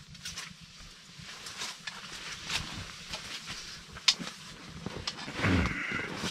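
A metal mug and pot are handled at a steaming cast iron stew pot, making scattered light clicks and knocks, with one sharp clink about four seconds in. A short grating scrape follows near the end.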